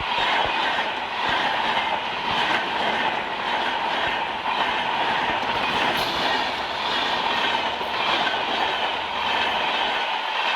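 AC double-decker express train rolling by, its wheels clattering over rail joints in a steady rush of noise, with a thin steady ringing from the wheels on the rails.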